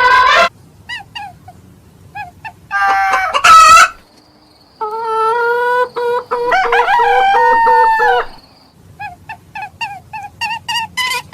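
Rooster crowing: one long, drawn-out crow starting about five seconds in, with a shorter loud call before it and runs of short clucking calls around it.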